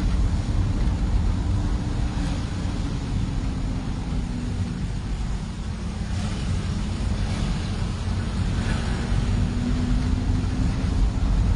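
Car engine and road noise heard from inside the moving car: a steady low rumble with a faint engine hum that sags slightly in pitch midway and climbs again later.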